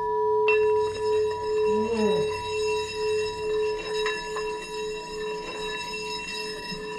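Singing bowl ringing after a strike with its mallet. A second, harder strike about half a second in brings out bright high overtones over the low ring, which then holds for several seconds with a slow waver in loudness and fades slowly.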